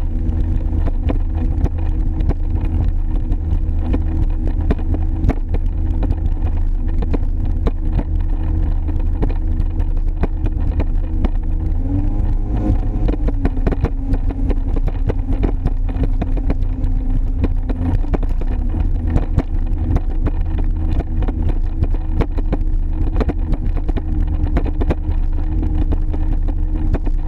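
Sea-Doo XP personal watercraft's two-stroke engine running steadily at speed, with water and wind noise. Its pitch wavers briefly about halfway through as the throttle changes.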